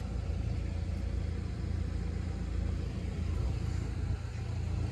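Steady low engine rumble with a faint steady hum above it.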